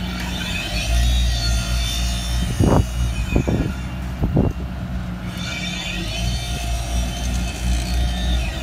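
Asphalt paver's diesel engine running steadily while paving. A few short scrapes of hand rakes or lutes on the fresh macadam come about three to four and a half seconds in.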